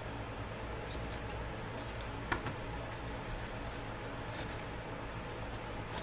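Small cleaning brush scrubbing the forcing cone and front of a revolver's cylinder: faint, irregular scratching and light ticks, with one sharper click about two seconds in, over a steady low hum.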